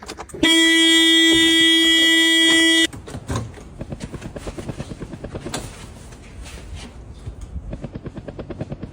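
A car horn sounds one long, steady blast of about two and a half seconds. It is followed by a fast, even pulsing of about five beats a second.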